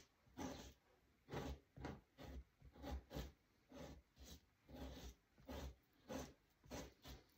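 Knife strokes scraping and cutting meat and fat off a beaver hide stretched over a wooden fleshing beam: about a dozen short, faint scrapes at roughly two a second.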